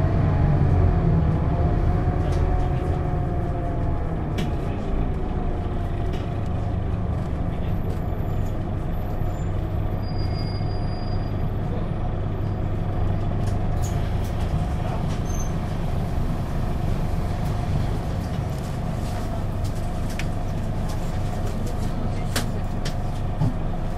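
Scania Citywide LE city bus (CK250UB) with its five-cylinder diesel, heard on board while under way. The engine note rises and falls for the first few seconds, then runs steadily, with scattered light rattles and clicks.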